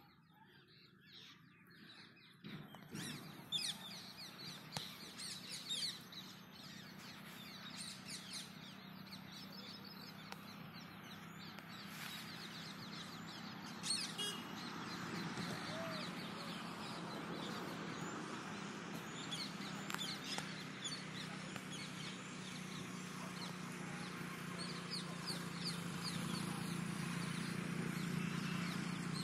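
Birds chirping and calling in many short high notes, starting about two seconds in, over a low steady hum that grows louder toward the end.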